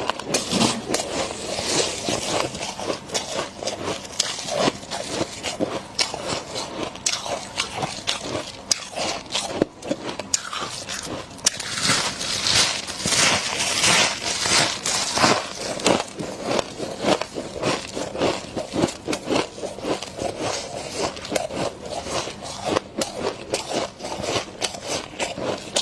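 Freezer frost being bitten and chewed close to the microphone: a dense, continuous run of crisp crunches and crackles, loudest around the middle.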